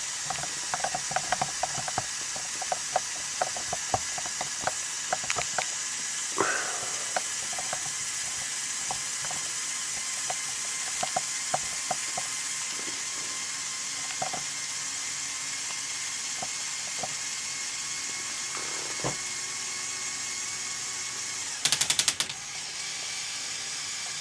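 LEGO Technic Power Functions motor running steadily, driving the plastic gear train and linear actuators that raise the crane boom, with a steady whine and scattered light clicks. A rapid clatter of clicks comes near the end.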